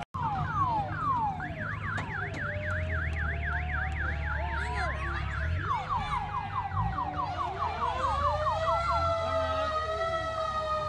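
Several vehicle sirens sounding at once, overlapping: a fast yelp rising and falling about four times a second alongside slower, longer wails, over a steady low rumble.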